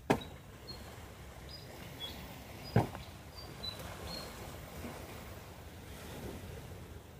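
Two sharp, loud knocks of something hard being struck, one right at the start and one about three seconds in, over a low steady outdoor background with a few faint, short, high chirps in between.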